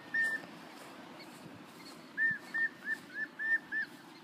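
Prairie dog giving its repeated chirping bark, a series of short high calls: one just after the start, then a run of six about three to four a second from around two seconds in. A repeated bark series like this is the prairie dog's alarm call.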